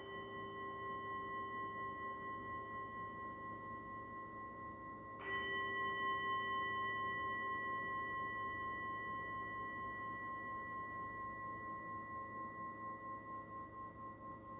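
Handheld singing bowl struck twice, at the start and again about five seconds in. Each strike rings on in long, steady, overlapping tones that fade slowly with a gentle wavering pulse. It is rung to close the final resting pose of a yoga class.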